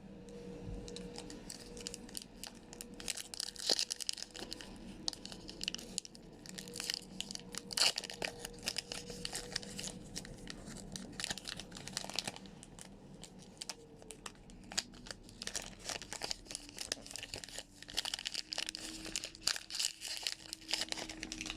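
Pokémon Rebel Clash booster pack's foil wrapper being crinkled and torn open by hand: a long run of irregular crackles and short rips.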